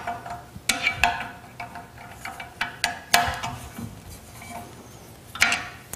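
Steel Allen wrench clinking in the socket-head bolts of a bandsaw rip-fence bracket as the bolts are loosened: a handful of sharp metal clicks with short ringing, the loudest near the end.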